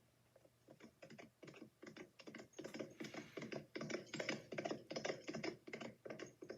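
Galloping horse hoofbeats sound effect: a rapid clip-clop of hooves, about four beats a second, that starts about a second in, grows louder as the horse comes by and eases a little near the end.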